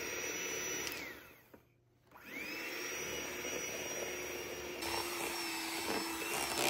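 Electric hand mixer beating crumbly cookie dough in a glass bowl. Its motor whines steadily, winds down and stops for a moment about a second and a half in, then spins back up and runs on.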